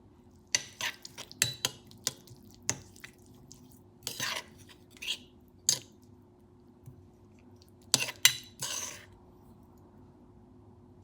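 Kitchen utensils clinking against dishes: irregular sharp clinks mixed with a few short scrapes, starting about half a second in and stopping a couple of seconds before the end.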